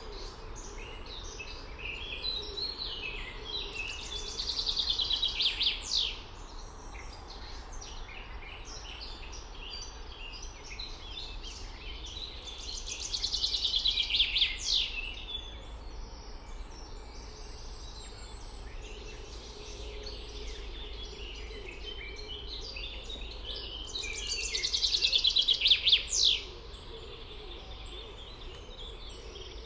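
Songbirds singing: one bird repeats a loud song phrase three times, about every ten seconds, each a fast trill that grows louder and ends in a quick downward note. Quieter chirps from other birds sound between the phrases over a steady low background hum.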